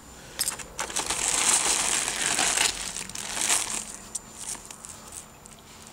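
Small plastic zip bags and packaging of craft beads crinkling as they are handled. The rustling starts about half a second in and is loudest for the next couple of seconds, then thins to a few light crackles.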